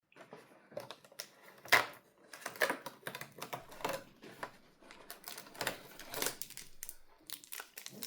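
Irregular clicks, taps and short rustles of cardboard and plastic packaging being handled, as in opening a Pokémon card advent calendar.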